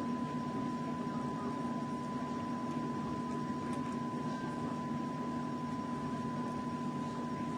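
Steady machine hum with a constant high-pitched tone running under it, unchanging throughout.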